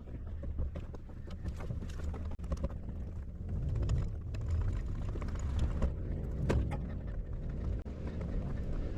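Kubota U-35 mini excavator's diesel engine running steadily, with irregular clicks and knocks over the low rumble.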